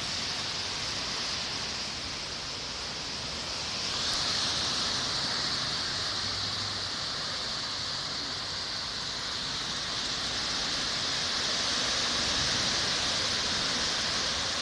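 Thunderstorm rain and wind: a steady rushing hiss that grows louder about four seconds in.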